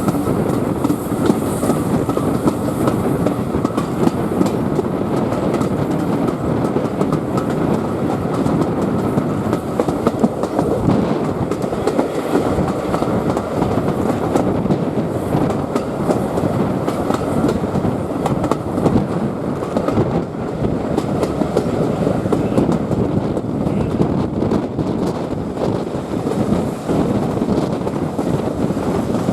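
Passenger train running along the line, a steady rumble of carriage wheels on the rails.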